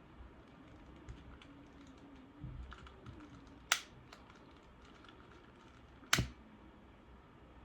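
Small clicks and taps of objects being handled, with two sharp, louder clicks about four and six seconds in.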